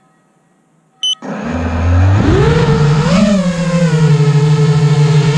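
A short electronic beep, then a multirotor drone's motors spin up: a whine that rises in pitch and settles into a steady hum as it lifts off.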